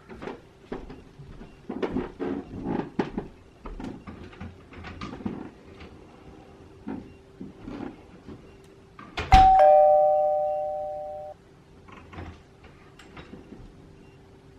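Two-note ding-dong doorbell chime sounding once about nine seconds in, fading and then cutting off abruptly about two seconds later. Before it come scattered light taps and clicks.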